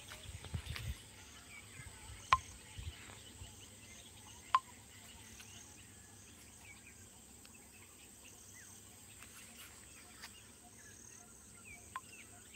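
Quiet outdoor ambience of faint scattered insect and bird chirps over a low hiss, with some low rumble in the first second. Two sharp clicks stand out, about two seconds and four and a half seconds in.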